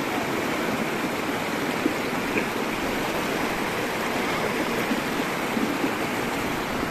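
Fast, shallow mountain river rushing over boulders in white-water riffles: a steady, even rush of water.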